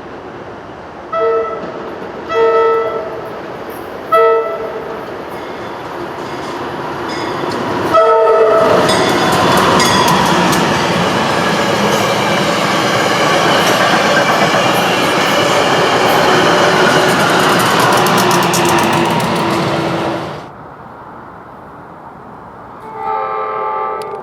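Nathan K5LA five-chime air horn on a SEPTA push-pull train: three short toots, then a longer blast as the train passes close with a loud rumble and rapid wheel clicks for about twelve seconds. The sound drops away suddenly, and another short horn blast follows near the end.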